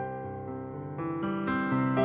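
Slow instrumental music on keyboard, with sustained notes and chords changing about every half second to second.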